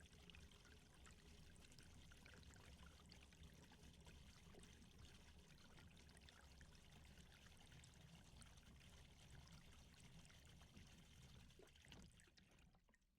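Near silence: a faint steady hiss, fading out near the end.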